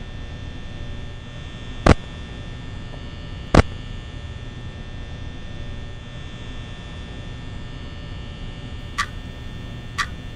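Steady electrical hum, with two loud sharp clicks about two and three and a half seconds in. Near the end a wall clock ticks, lighter ticks once a second.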